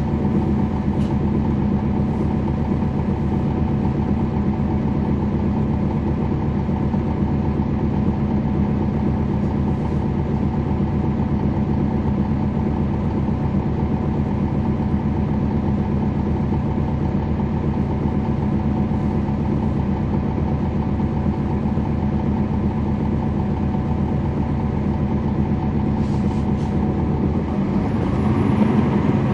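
Cummins ISL9 diesel engine of a 2011 NABI 416.15 transit bus, heard from inside the bus, running at a steady pitch. Near the end the engine note changes and grows a little louder.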